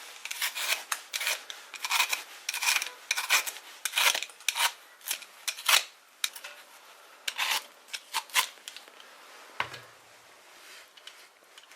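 A snow pear being peeled with a blade: a run of short rasping scrapes, about two a second, that thin out after about eight seconds, with one soft knock near the end.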